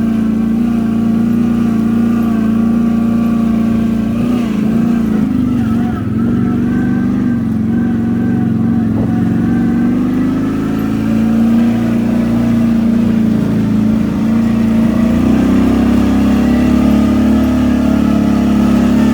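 ATV engine running steadily under throttle, its note wavering about four to six seconds in and rising slightly in pitch near the end.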